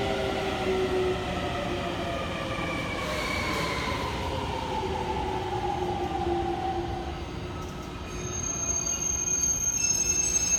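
JR Joban Line electric train slowing down: its motor whine falls steadily in pitch. From about eight seconds in, a high wheel squeal sets in and grows louder.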